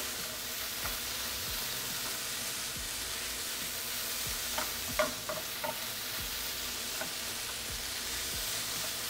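Chicken, vegetables and pineapple sizzling steadily in a frying pan as they are stirred and turned, with a few light clicks of the spatula and tongs against the pan around the middle and again near the end.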